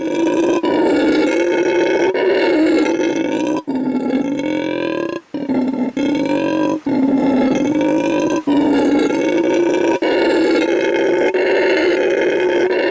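Black howler monkey howling: a deep, continuous roaring call, broken by short pauses every second or two.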